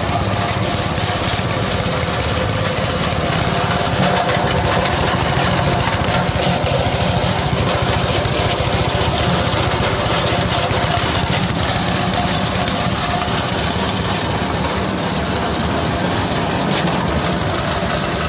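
Coconut-husk grinding machine for making cocopeat and cocofiber running steadily, a loud, even machine drone with a fast low pulsing.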